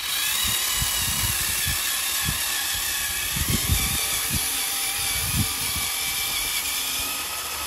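Radio-controlled model John Deere tractor's small electric drive motor and gearbox whining steadily as it pulls a wooden plank leveller through sand, with scattered low thumps.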